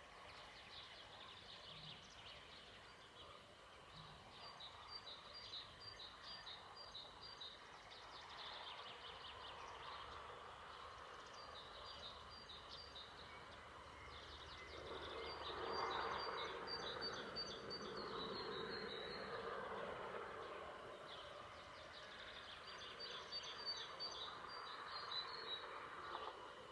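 Outdoor nature ambience: a songbird sings a short, rapid, high-pitched phrase in four bouts, over a steady faint high hum like insects. About halfway through, a broader rushing noise swells and fades.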